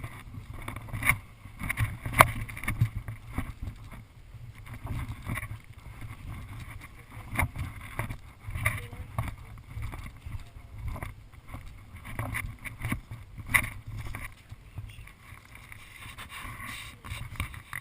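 Steady low rumble on the microphone with scattered, irregular sharp clicks and snaps, the loudest about two seconds in.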